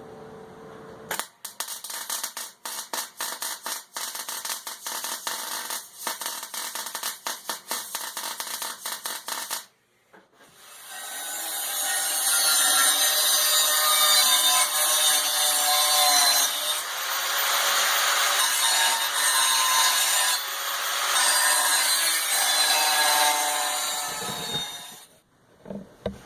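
Rapid scratching and rasping for about nine and a half seconds. After a brief pause, an electric drill bores through steel plate for about fifteen seconds, its pitch wavering as it cuts.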